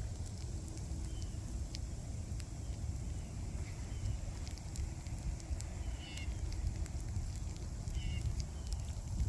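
Winter storm wind buffeting the microphone in a steady low rumble, with scattered light ticks and a few faint, short, high chirps.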